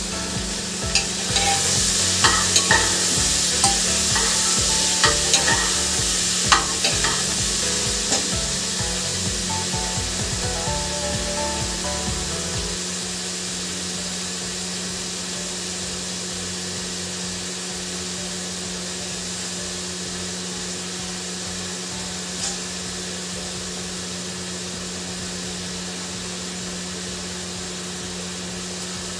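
Sambar ingredients sizzling as they fry in oil in an aluminium pressure cooker used as an open pan. A metal ladle clinks and scrapes against the pot as it is stirred during the first eight seconds or so, then the frying goes on steadily over a low hum.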